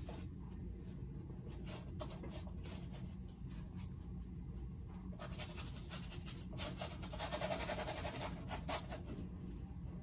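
Bristle paintbrush working acrylic paint: a run of short, scratchy brush strokes, with a denser stretch of scrubbing from about five to nine seconds in, over a low steady room hum.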